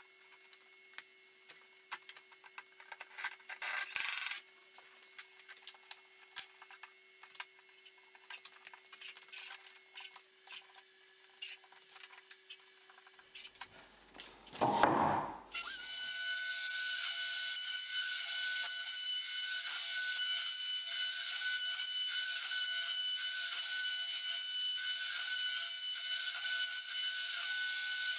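Faint clicks and knocks of handling for the first half, then a short loud whoosh about halfway through. After that a plunge router runs steadily on a flattening sled over an end-grain wood panel: a loud, even high whine with cutting noise to the end.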